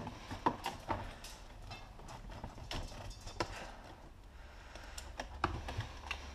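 Irregular clicks and light knocks from a mostly ABS-plastic Franchi SAS 12 airsoft pump shotgun replica being handled and turned over in the hands.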